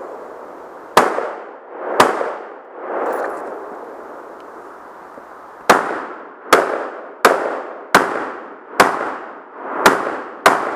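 Rifle shots on a shooting range: two shots a second apart, a pause of about three and a half seconds, then seven more in quicker succession, under a second apart. Each shot is followed a moment later by a drawn-out ring.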